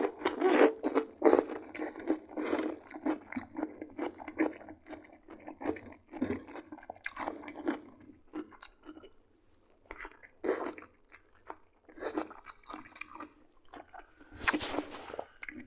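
Close-miked chewing and crunching of crisp, overgrown cucumber and oven-roasted chicken drumsticks: irregular crunchy bites and wet mouth sounds with short pauses between them. A louder burst of rustling near the end comes as a cloth towel wipes the face.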